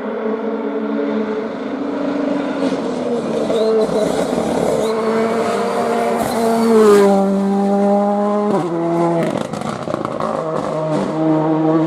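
Rally car's engine running hard as it approaches, then braking and shifting down twice, the engine note dropping in steps about seven and eight and a half seconds in, before picking up again near the end.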